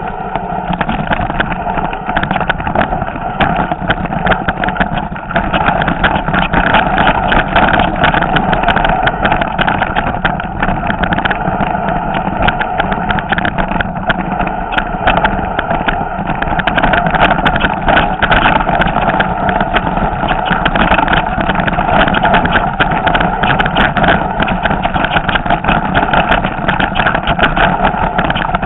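Mountain bike rattling and clattering as it rolls down a loose, stony trail: a dense, unbroken run of small knocks from tyres and bike over the rocks, over a steady noise.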